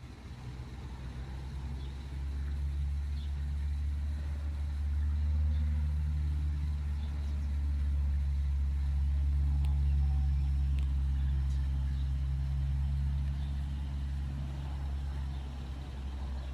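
A motor vehicle going by: a low engine rumble that builds over the first few seconds, holds steady, then fades away near the end.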